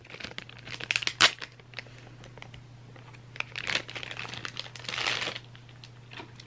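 A clear plastic bag crinkling and rustling in irregular crackles as a plastic figure stand is pulled out of it. There is one sharp click about a second in.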